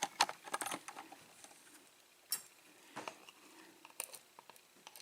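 Small metal lock pins being handled and moved about on a work surface: a quick flurry of light clicks and taps, then a few scattered single clicks.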